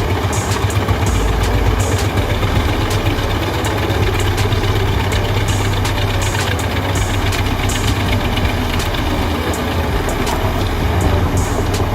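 Heavy engine of a truck-mounted wood chipper running steadily with a strong low hum, while its crane feeds dead trees into the chipper.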